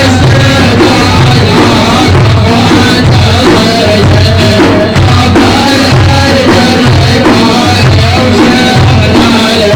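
Instrumental music of an Arabic Sufi praise song (madih), with a steady beat on percussion, a melodic line and a repeating bass pattern.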